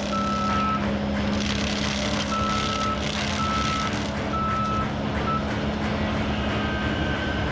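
Bobcat T870 compact track loader's diesel engine running under a steady low drone while its backup alarm sounds about six short beeps at uneven spacing as the machine reverses. The last beep is a little higher in pitch.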